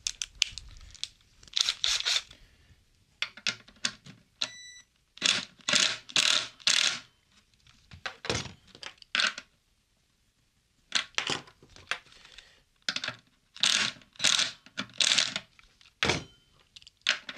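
Hands handling tools and a guitar on a table: short bursts of scraping and rustling in clusters. Once, about four and a half seconds in, a small metal tool clinks with a brief ring.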